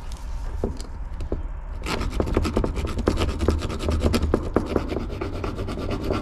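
Bare hacksaw blade sawing with quick short strokes down the slit in a KTM 50 carburetor's clamping collar, widening it for more clamping force. A few light handling clicks come first, and the steady rasping strokes start about two seconds in.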